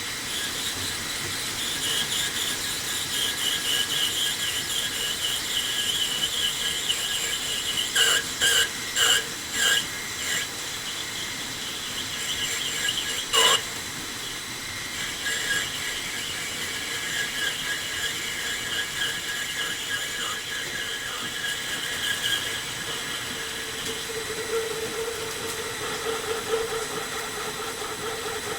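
Metal lathe running while a ball-turning attachment cuts, the cutting tool squealing through much of the cut. A few sharp knocks come about a third of the way through, another comes a few seconds later, and a lower tone takes over near the end.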